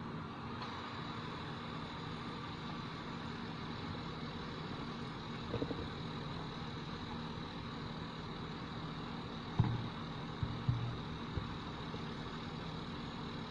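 Steady low hum of idling car engines, with a few short knocks about two-thirds of the way through.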